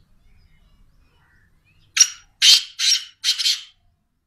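Black francolin (kala teetar) calling: four harsh, grating notes in quick succession, starting about two seconds in.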